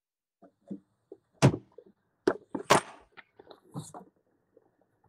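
Handling noise close to the microphone: irregular knocks, clicks and a short scrape as a book is fetched and the recording device is moved. The sharpest knocks come about one and a half seconds in and again just before three seconds in.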